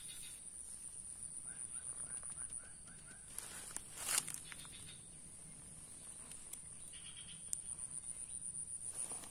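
Steady high-pitched drone of insects in swampy scrub, pulsing slightly. A quick run of short chirps comes about a second and a half in, and a brief rustle about four seconds in.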